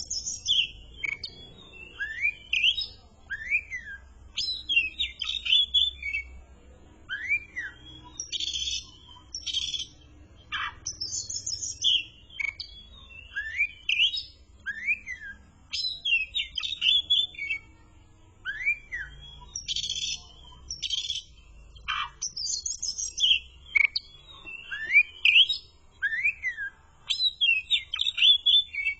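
Oriental magpie-robin singing continuously: a varied run of short whistled notes that rise and fall, mixed with sharper high chirps, with a new phrase every second or two.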